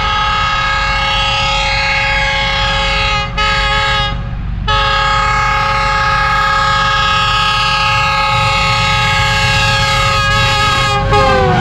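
Diesel locomotive's multi-tone air horn sounding as the express approaches at about 108 km/h, over the rumble of the train. One blast breaks off a little over three seconds in. A second, long blast drops in pitch near the end as the locomotive passes.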